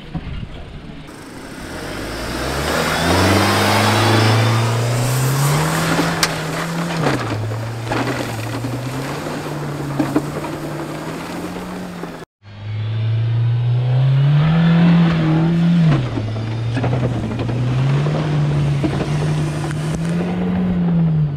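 Mahindra Thar's engine held at high revs under full throttle, its pitch climbing, holding and falling back twice, over the loud hiss of tyres spinning and throwing mud as they dig up a rutted wet-mud climb. A brief dropout about halfway through, then the same rise and fall again.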